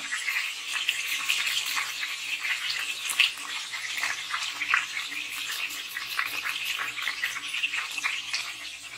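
Chicken pieces sizzling in hot oil in a pan, with many short, irregular crackles, while garlic cloves are scraped over a hand grater above them.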